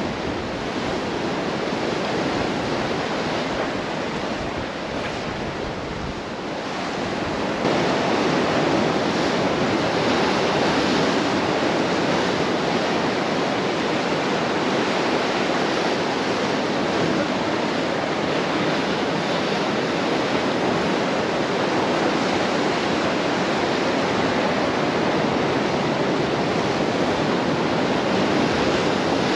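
Atlantic surf washing onto the rocky shore in a steady, unbroken rush of waves, which gets suddenly louder about seven seconds in.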